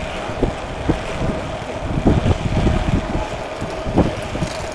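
Wind rushing over a phone's microphone while cycling, with frequent short knocks and a faint steady hum.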